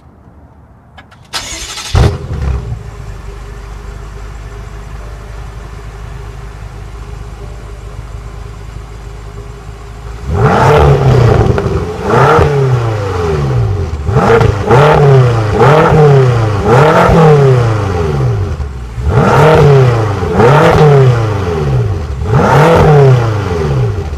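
2015 BMW M6 Gran Coupe's twin-turbo V8 starting with a brief flare, then idling steadily. About ten seconds in it is revved repeatedly, about eight quick blips that each rise and fall back to idle.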